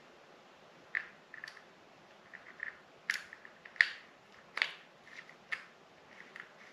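Small metallic clicks and ticks from a precision screwdriver working the side-plate screws of a MingYang W300L baitcasting reel. There are a handful of sharper clicks, about a second apart, with fainter ticking between them.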